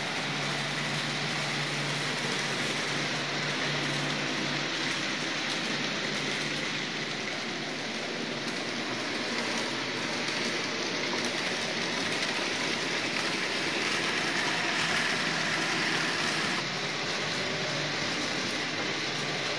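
N-gauge model trains running on a layout: a steady rushing rattle of small wheels on the track, with a faint low motor hum now and then.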